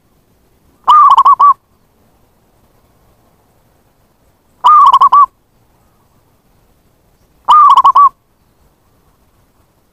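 Zebra dove (perkutut) calling: three short bursts of quick, warbling cooing notes, each about half a second long and a few seconds apart. It is the cooing used to lure wild zebra doves.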